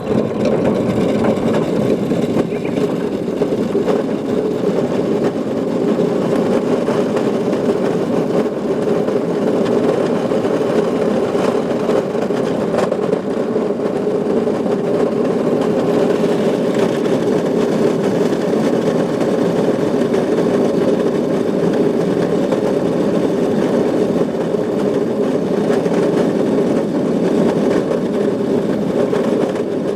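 Go-kart motor running steadily, a continuous mechanical drone that starts abruptly and holds an even level.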